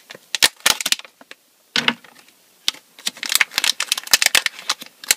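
A plastic blind-bag packet crinkled and torn open by hand: irregular bursts of sharp crackles, densest in the second half.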